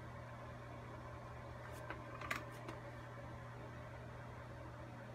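Quiet room tone with a steady low hum, and a few faint clicks about two seconds in.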